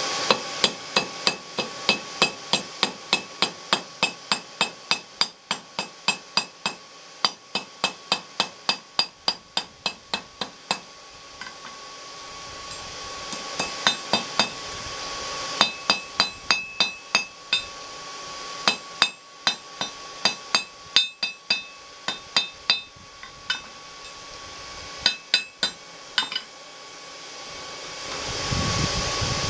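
Hand hammer striking hot 3/8-inch rebar on an anvil: quick runs of ringing blows, about three a second, broken by a few short pauses. A forge blower hums steadily underneath and grows louder near the end.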